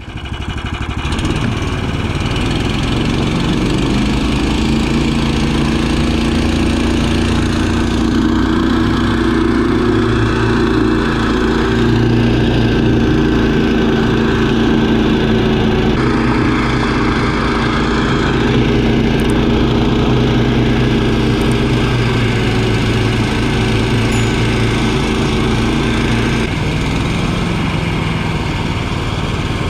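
Small single-cylinder engine of a KS Moto motorized towing unit (motor-dog) running steadily. Its revs rise over the first few seconds and drop back about 26 seconds in.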